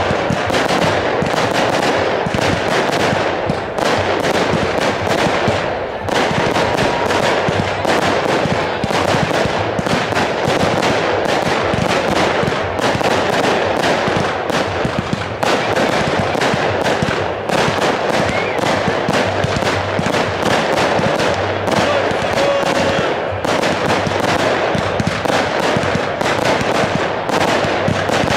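Fireworks firing in quick succession from consumer firework cakes: a dense, unbroken run of rapid bangs and crackling, many shots a second, with no pause.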